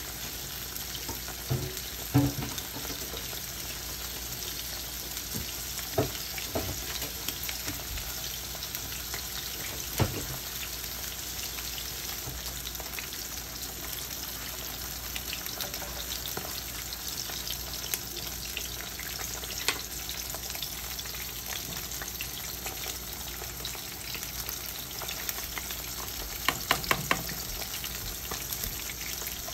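Salmon fillets sizzling steadily in a nonstick frying pan, with a few isolated sharp clicks and a quick run of ticks near the end.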